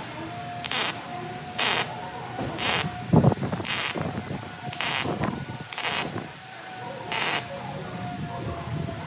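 Welding arc on a steel exhaust stack pipe, firing in seven short hissing bursts about a second apart as the joint is stitch-welded. A faint steady hum runs between the bursts, and a low knock sounds about three seconds in.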